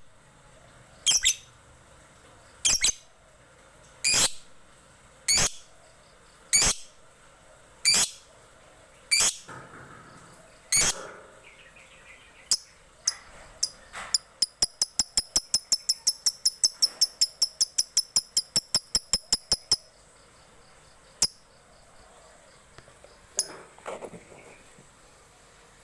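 Lovebird calling for a companion: loud, sharp, high single calls about every second and a half, then a fast run of chirps at about six a second lasting some six seconds, and a few more single calls near the end.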